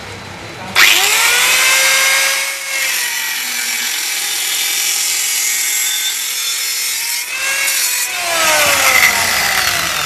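Electric abrasive cutter machine cutting through steel angle iron: the motor spins up with a rising whine about a second in, the disc grinds through the metal with a loud hiss, and near the end the motor winds down with a falling whine.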